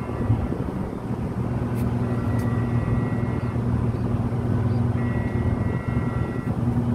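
Steady, low marine diesel engine drone with fainter higher tones above it.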